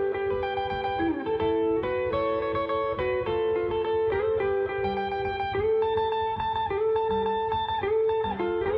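Hollow-body guitar playing a melodic lead line of held single notes and paired notes, with short slides between some of them.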